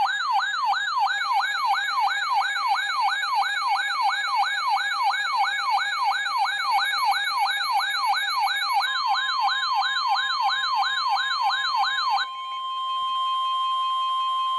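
Electronic emergency-alert siren yelping, its pitch sweeping up and down about three times a second. From about nine seconds in, the steady weather-radio warning alarm tone (about 1050 Hz) sounds over it. The siren cuts off at about twelve seconds, leaving the alarm tone alone.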